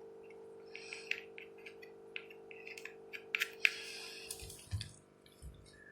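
Light clicks and taps of small caparison ornament pieces being handled and set down, scattered and irregular and sharpest around the middle. A steady hum runs under them and fades out near the end.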